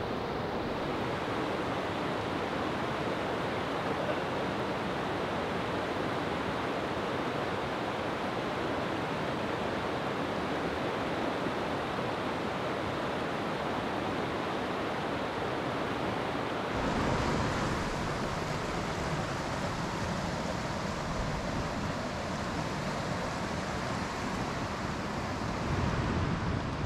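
Mountain stream rushing over boulders and through riffles, a steady rush of water. About two-thirds of the way through the rush becomes fuller, with more low rumble.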